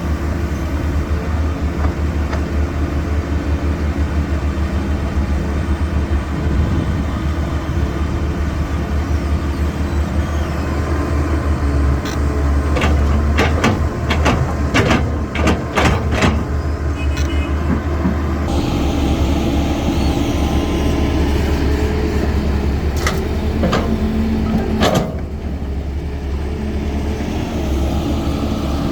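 Diesel engine of a CAT 320 hydraulic excavator running steadily under work. A run of sharp knocks and clanks comes about halfway through and a few more near the end. A hiss rises over the engine for several seconds in the second half.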